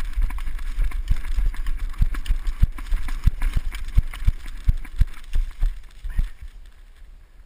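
Running footsteps through deep dry fallen leaves: about three heavy footfalls a second with leaves crunching and rustling, which stop a little after six seconds in.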